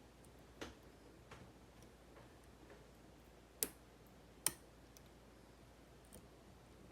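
Scattered small clicks of lock picks working in a Kaba 8 dimple pin-tumbler lock: a few faint ticks, then two sharper clicks a little past the middle.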